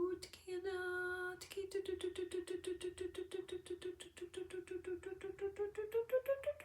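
A woman's voice toning without words: one held note, then a fast even pulsing on the same pitch, about eight pulses a second, which rises in pitch near the end.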